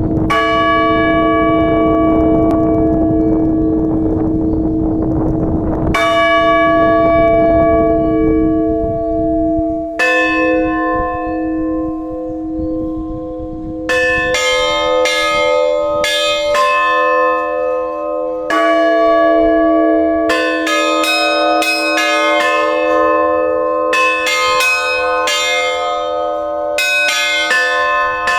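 Russian Orthodox church bells ringing a festive peal. A large bell is struck slowly, each stroke left to hum, and about fourteen seconds in several smaller bells join with quick, dense strokes over it.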